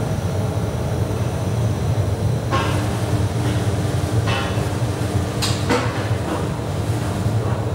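Workshop machinery running with a steady low rumble, and steel boiler tubes clanking against each other and the rack a handful of times.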